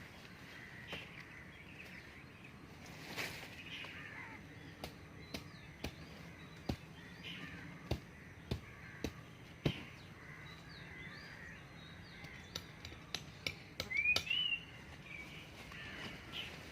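Birds chirping, with scattered sharp taps and clicks and a louder rising chirp about fourteen seconds in.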